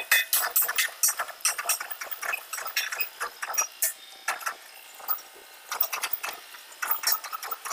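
Electric arc welding on a steel pipe: the arc crackles in rapid, fairly even pops. It stops for a couple of seconds about halfway through, then strikes up again.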